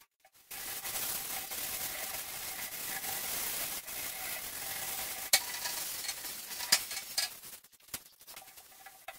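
Scrubbing the greasy stainless steel top of a gas stove with a scrub pad: a steady scratchy hiss with a couple of sharp clicks a little past halfway, fading near the end.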